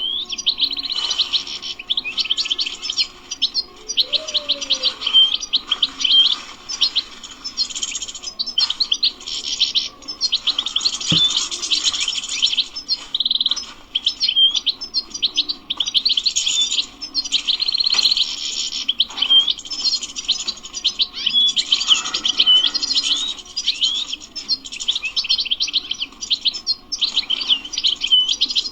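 European goldfinch singing: fast, continuous twittering phrases broken by short pauses.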